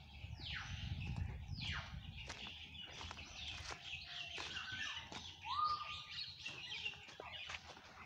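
Several caged birds calling together in a mix of chirps and twitters. Two loud calls sweep downward in pitch in the first two seconds, and a whistled note rises and then holds steady about five and a half seconds in. A low rumble runs under the first two seconds.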